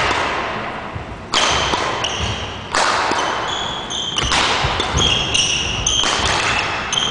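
Badminton rally on a wooden gym court: sharp racket hits on the shuttlecock about every second and a half, each ringing on in the hall, with repeated short high squeaks of shoes on the floor.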